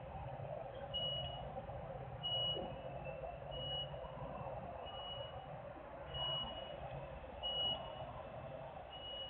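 Reversing alarm on a work vehicle beeping, a single high tone repeating about every second and a bit, seven beeps in all. Under it runs a steady machinery hum and a low rumble.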